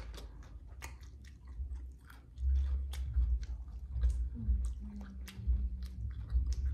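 A person biting into and chewing a slice of loaded combination pizza close to the microphone: many short, sharp crunching clicks over a low rumble, getting louder a couple of seconds in.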